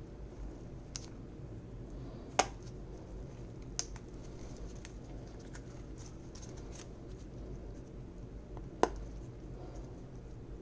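Sparse sharp metallic clicks and taps as a snap ring is worked into its groove on a brake caliper piston, the loudest about two and a half seconds in and another near nine seconds, over a low steady hum.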